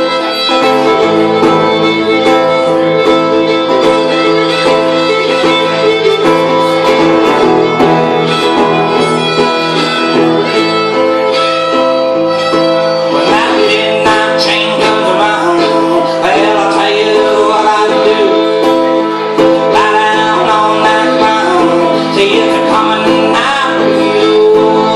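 Fiddle and guitar playing a song together live, with the fiddle carrying the melody over strummed guitar chords.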